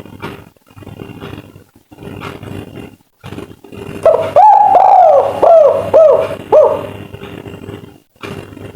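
Spotted dove (tekukur) of the 'kuk 3' type cooing: one loud phrase of about six hooked, falling coos starting about four seconds in and lasting under three seconds.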